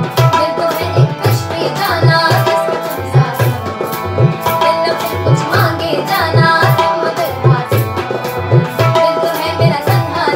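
A woman singing to her own harmonium, which sustains chords under her voice. An Indian hand drum keeps a steady rhythm of deep bass strokes that bend upward in pitch, with an egg shaker ticking along on the beat.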